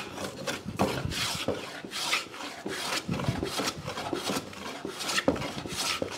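Metal bench hand plane taking quick, repeated strokes across the face of a softwood board made from 2x4 stock, its blade cutting shavings with a scraping swish, a few strokes a second.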